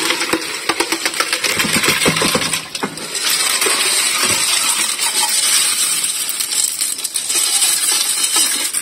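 Water and a bowlful of siput sedut snails poured into a stainless-steel colander: the shells clatter and clink against the metal mesh while the water rushes through. The clatter runs steadily and eases off near the end.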